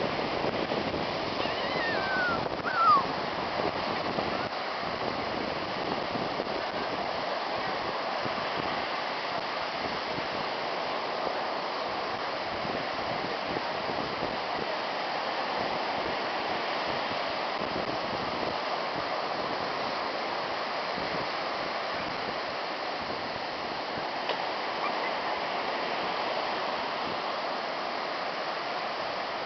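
Steady wash of ocean surf breaking on the beach. About three seconds in there are two short falling cries.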